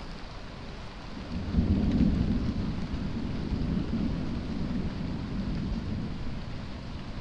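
A long rumble of thunder that swells about a second and a half in and slowly fades, over a steady hiss of rain.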